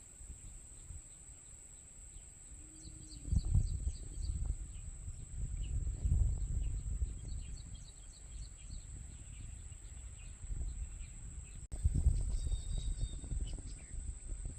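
Outdoor rural ambience: small birds chirping faintly, with irregular low gusts of wind buffeting the microphone.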